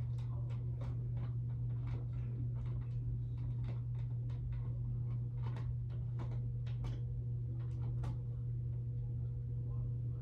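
Irregular small plastic clicks and knocks from handling a fire alarm, twisting it against its mounting base, over a steady low hum.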